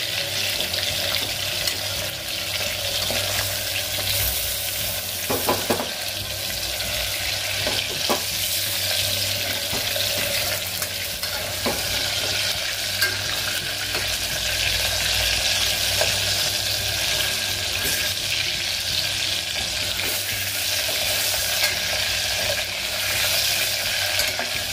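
Minced beef kofta balls sizzling steadily as they part-fry in hot oil in an aluminium pressure cooker. A steel spoon turns them, with a few light clicks against the pot about 5, 8 and 12 seconds in.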